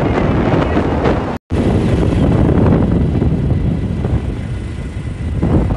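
Rushing wind on the phone's microphone and road noise from riding on the back of a moving motorbike, cut off by a short silent gap about a second and a half in before it resumes.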